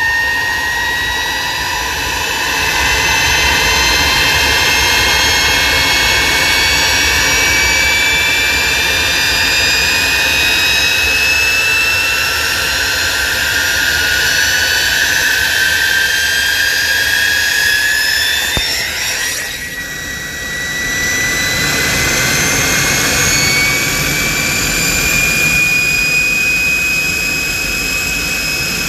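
Walter Motorlet M701C-500 centrifugal-flow turbojet running on a test stand, a loud rushing roar with a high turbine whine that climbs slowly in pitch. About nineteen seconds in the sound briefly dips and muffles, then the rising whine carries on.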